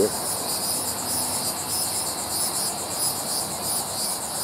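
Insects chirping in the surrounding brush: a steady, high-pitched, rapidly pulsing trill.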